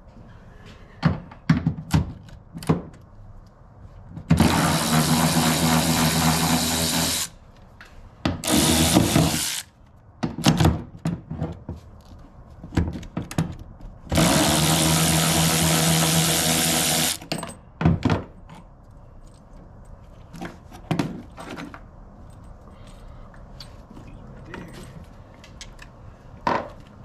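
A power tool spinning out the rear seat bolts in three runs: about three seconds, then one second, then three seconds. Short knocks and clicks from handling the tool and bolts come between the runs.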